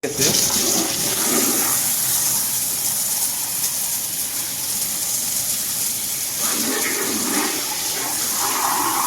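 Pressurised water jet from a pump-driven hose spraying and splashing over washing-machine drain parts, flushing the dirt out of them. It makes a steady, loud hiss that shifts slightly in tone near the end.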